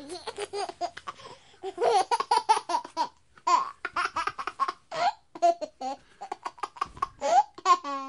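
A baby laughing in repeated runs of short, quick, high-pitched laughs with brief pauses between the runs.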